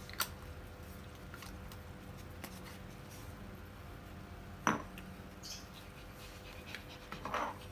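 Quiet room with scattered small clicks and taps, one louder tap about halfway through, and a brief dog snuffle near the end.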